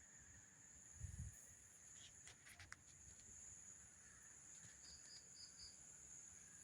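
Faint night ambience: a steady high insect trill, with a few soft clicks, a low thump about a second in, and four quick chirps about five seconds in.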